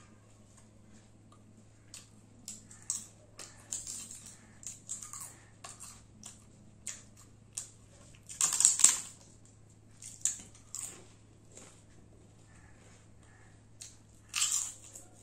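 A crisp papad being snapped and crushed by hand: scattered short crunches and clicks, with the loudest crackling run a little past halfway as it breaks into pieces, and another short burst near the end.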